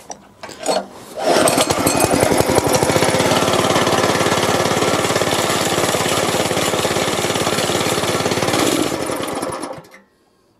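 Plate compactor's small single-cylinder four-stroke engine, a Honda GX160 copy, pull-started on choke: it catches about a second in, runs steadily for around seven seconds without picking up revs, then dies away. This is the fault of starting briefly and stalling, which persists with the oil-level sensor disconnected.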